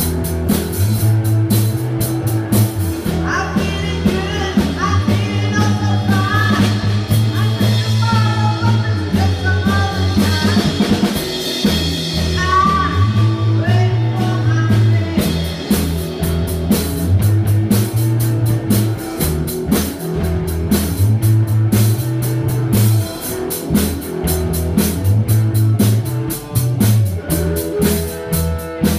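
A rock band playing live: drum kit, electric guitars and a repeating bass line, with a woman singing through roughly the first half before the music continues without vocals.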